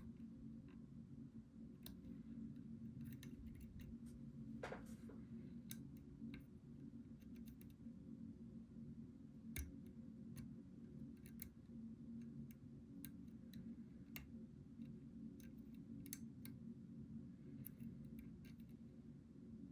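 A lock pick working the pins of a challenge lock: faint, irregular clicks and taps as pins are lifted and set, with a short scrape about five seconds in, over a steady low hum.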